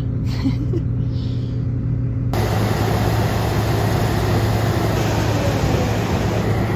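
Heavy engine running steadily with a low hum. About two seconds in, an even rushing hiss starts abruptly and continues over the engine.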